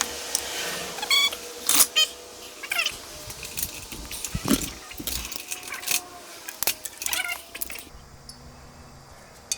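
Metal tools clinking and knocking together in short, irregular clatters, with a couple of brief high-pitched squeaks or cries.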